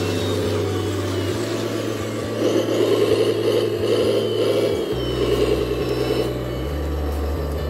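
Radio-controlled scale excavator and dump truck working: a steady, wavering mechanical whir over a low engine-like hum. The hum shifts pitch in steps a few times, and the whir swells as the excavator swings its bucket.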